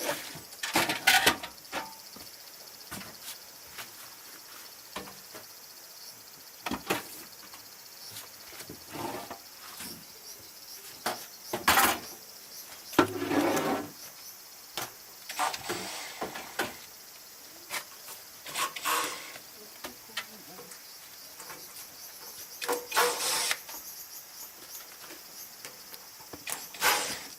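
Scattered knocks, scrapes and rustles of hand work on the house's wooden boards and siding, some sharp and some drawn out, over a steady high hiss.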